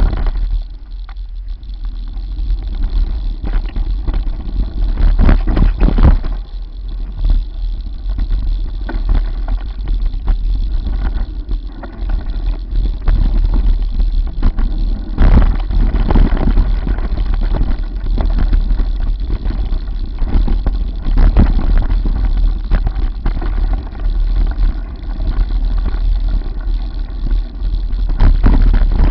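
Mountain bike riding a rough dirt trail, heard through a bike- or rider-mounted camera: a steady wind rumble on the microphone with frequent knocks and rattles as the bike goes over bumps.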